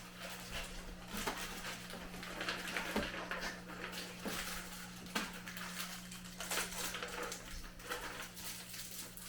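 Candy and its plastic packaging being handled: scattered light clicks and clatters of small candies against containers, with rustling, over a faint steady hum.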